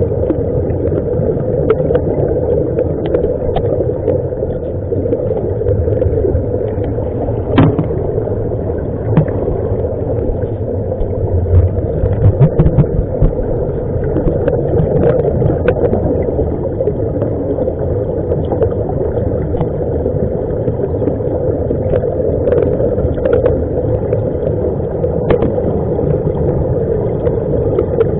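Steady underwater rush and rumble of air bubbles streaming out of a surface-supplied diving helmet, with scattered small clicks throughout.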